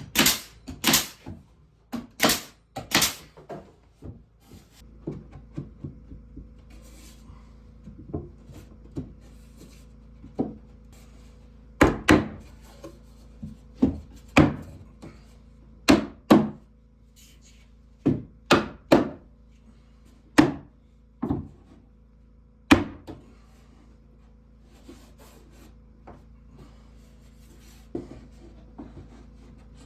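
Woodworking by hand: irregular sharp knocks and thuds on wood with quieter handling and rubbing between, a few quick knocks at the start, then a scattered run of louder ones in the middle, over a faint steady low hum.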